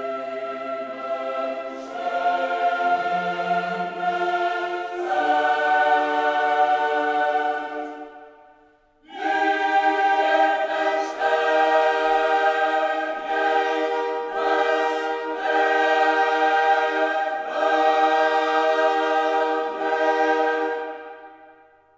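Choral music: a choir holding slow, sustained chords. It fades out about eight seconds in, comes back a second later, and fades out again at the end.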